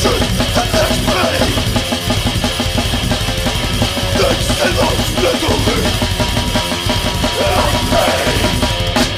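Heavy metal band recording: distorted electric guitar and drum kit playing loudly without a break.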